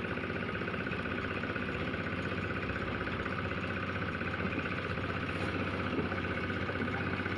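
An engine running steadily at an even speed, with a fast, even pulse.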